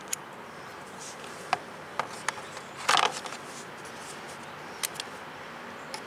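Handling of a Fluke digital multimeter and its test leads: a few sharp plastic clicks and a brief scrape about halfway through, over a steady faint background hiss.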